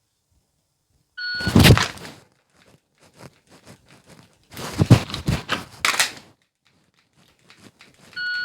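Shot timer beeping to start, then the clicks and clacks of a Glock 45 pistol being drawn, dry-fired and reloaded, and a second beep seven seconds after the first marking the end of the par time.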